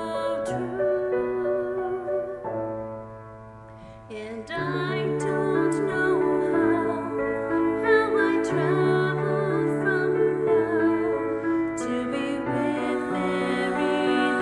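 Slow, gentle music with piano: sustained chords that thin out and soften about three seconds in, then return fuller, with a wavering melody line carried above the low chords.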